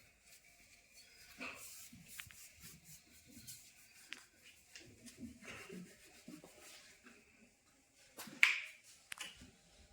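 Hands rubbing and pressing on a patient's back during manual chiropractic treatment, with scattered soft rustles and faint clicks. There is one sharp snap about eight seconds in.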